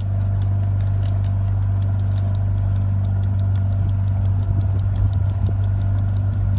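Boat engine running with a steady low drone and a faint, fast ticking over it.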